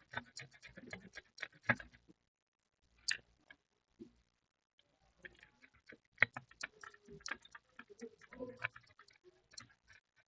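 Faint, irregular small clicks and scratches of a hand tool scraping the burnt layers off a laptop motherboard, with short pauses between strokes.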